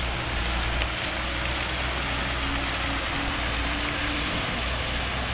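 Steady rushing hiss of floodwater jetting several feet up out of the pavement, with a low rumble underneath. A grey Ford Escape SUV is driving through the spout, and its engine is faintly heard.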